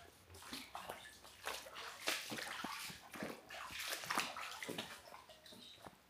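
Water splashing and sloshing in quick, irregular bursts.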